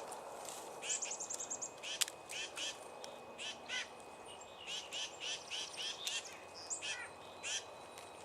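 Small wild birds calling with many short, high chirps one after another, and a quick trilled run of notes about a second in.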